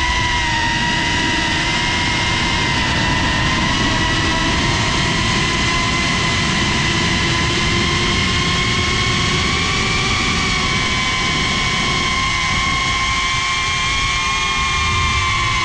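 GEPRC CineLog 35 FPV drone's brushless motors and propellers whining steadily, heard through the GoPro mounted on the drone. Several high whines drift a little up and down in pitch with the throttle over a rushing propeller-wash noise.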